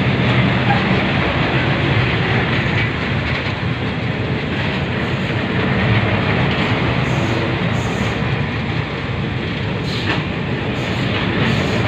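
Passenger coaches of a State Railway of Thailand express train rolling steadily past close by, wheels running on the rails, with a few sharp clicks near the end as wheels cross rail joints.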